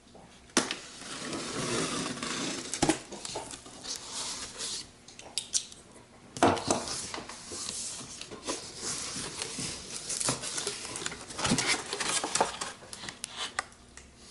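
A cardboard tool-kit box being opened and its packaging handled: irregular rustling and scraping with sharp knocks and clatter.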